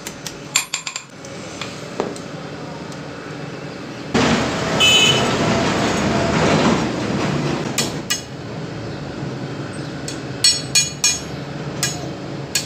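Hammer taps on iron against an anvil block, ringing metallic clinks: a quick run of taps near the start, then clusters of taps in the second half. In between, a loud rushing noise lasts about three seconds.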